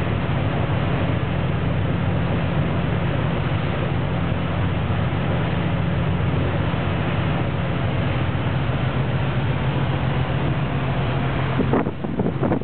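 Wind rushing over the microphone on a moving ferry's open deck, with the ship's engines droning steadily underneath. Near the end the steady rush drops away into a few gusty buffets while the engine drone carries on.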